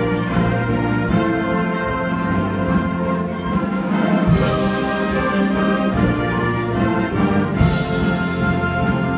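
Concert band playing held brass and woodwind chords over low bass notes; a brighter high wash comes in about three quarters of the way through.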